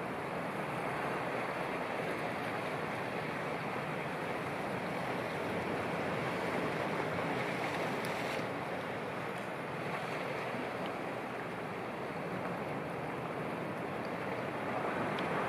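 Sea waves washing in a steady rush, swelling a little now and then.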